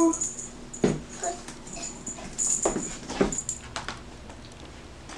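A small bell on a cat wand toy jingling faintly as it is waved, with a few sharp knocks on a hardwood floor as a kitten pounces at it.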